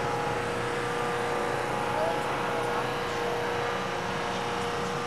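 A vehicle engine running steadily at a constant pitch, with no revving.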